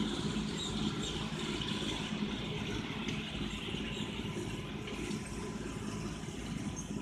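Fiat 100-horsepower tractor running steadily under load while towing a manure spreader, with the clatter and rush of the spreader's rear beaters flinging manure.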